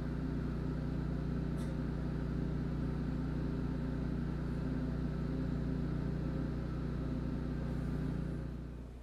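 Generac 22 kW home standby generator's V-twin engine running at a steady speed, heard through the walls of the house as an even, muffled hum. It drops in level near the end.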